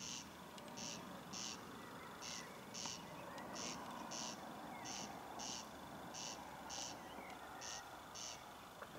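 An animal in the meadow calling: a short rasping chirp repeated steadily in pairs, about three every two seconds, over a faint outdoor hiss.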